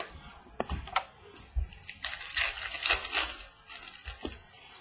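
Baseball trading cards handled with a few light taps and clicks, then a card pack's wrapper torn open and crinkled for about a second and a half, with soft knocks of cards set down on the table.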